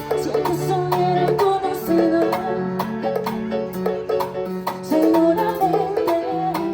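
Live band playing an up-tempo merengue: a melodic instrumental line over steady, evenly spaced percussion.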